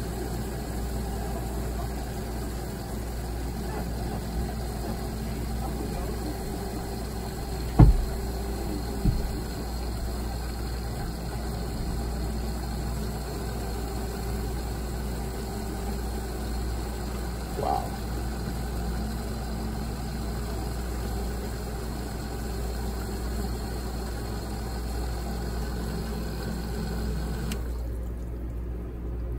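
A pump running steadily, discharging water drawn from a water-contaminated diesel fuel tank through a hose into a plastic bucket, the water churning as it pours in. A sharp knock comes about eight seconds in, with a smaller one a second later.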